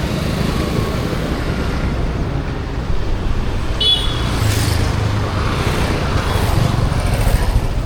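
Road traffic on a busy street: a steady low rumble of passing vehicles with several swells as they go by, and a short high tone about four seconds in.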